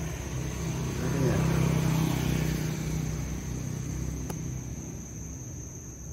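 A motor vehicle passing on a nearby road: a low engine and tyre rumble that swells about a second in and fades away over the next few seconds. Crickets chirp steadily behind it.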